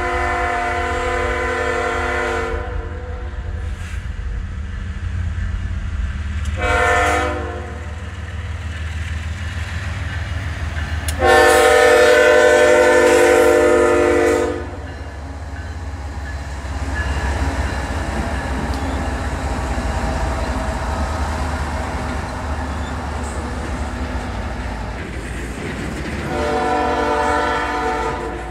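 CSX diesel freight locomotive's horn sounding for a grade crossing, four times: a long blast, a short one, a long and loudest blast, and another long blast near the end. Under it runs the locomotive's steady low rumble, then the clatter of double-stack container cars rolling over the crossing.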